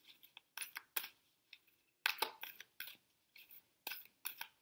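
A deck of tarot cards being shuffled by hand: quick, irregular flicks and soft snaps of card against card, coming in several short runs.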